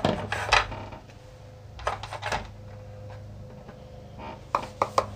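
Small hard clicks and taps from makeup products being handled, a few at a time in three short clusters, over a steady low hum.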